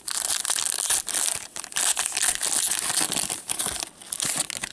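Gold foil wrapper of a 2014-15 Upper Deck Masterpieces hockey card pack being torn open and crinkled by gloved hands: a dense, continuous crackling rustle.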